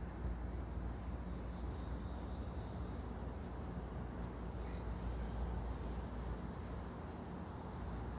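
Crickets trilling in a steady, unbroken chorus, over a low rumbling noise.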